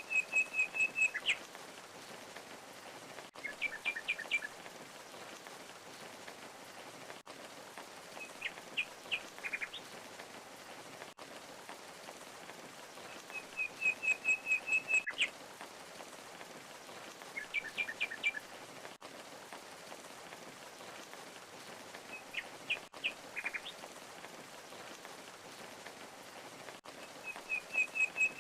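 Steady rush of a waterfall with a small songbird calling over it: a quick trill of high notes, then two short clusters of chirps a few seconds apart, the same sequence coming round again about every 14 seconds.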